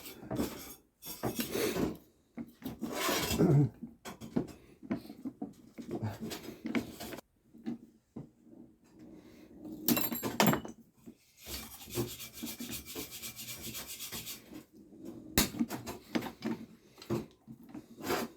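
Hand tools scraping, rubbing and knocking on the rusty steel of a car exhaust, in irregular strokes. About two-thirds of the way through there is a steadier hissing scrape lasting about three seconds.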